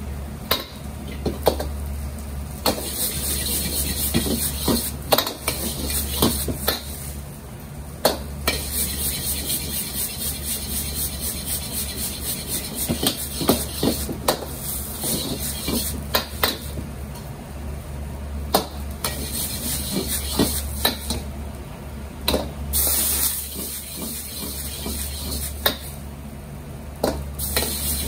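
A metal ladle repeatedly scraping and knocking against a wok as fried rice is stir-fried and tossed, with the rice sizzling in bursts of hiss. Under it runs the steady low roar of a high-output gas wok burner.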